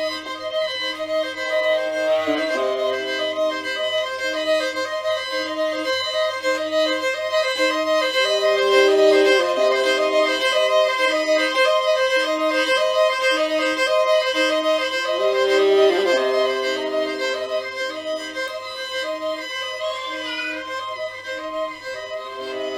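Instrumental music with held, violin-like tones over a low steady drone, and a short note repeating about once a second. The pitch slides about two seconds in and again past the middle.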